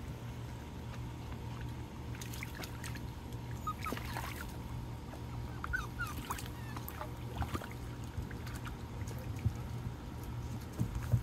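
Miniature Australian Shepherd puppies splashing and paddling in a shallow plastic tub of water, over a steady low hum. A few short high chirps or squeaks come through in the middle.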